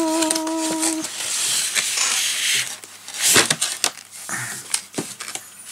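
A hummed note held for about a second, then a cardboard box lid being lifted off: cardboard and paper rustling and scraping, with a few sharp knocks as the box is handled.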